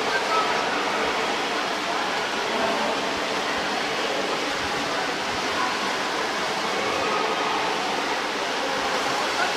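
Indoor swimming pool hall ambience: a steady wash of splashing water from swimmers with faint, indistinct voices mixed in.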